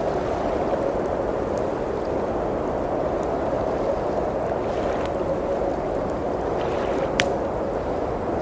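Steady blizzard wind outside, with a wood fire crackling: a few faint snaps and one sharp pop about seven seconds in.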